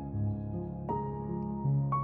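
Soft, slow instrumental background music with sustained keyboard-like notes, changing notes about every half second.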